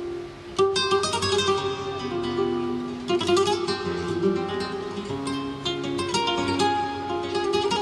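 Background music: acoustic guitar in a flamenco style, plucked notes mixed with quick strums.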